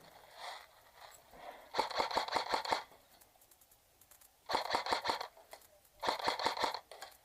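Airsoft electric gun firing three short bursts on full auto, rapid even clicks about ten a second, the first a second long and the next two shorter.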